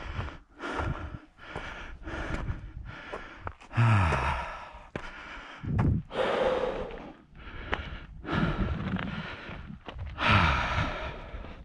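A hiker breathing hard, with deep breaths about every two seconds, one ending in a voiced sigh. Short, regular footsteps are heard in the first few seconds.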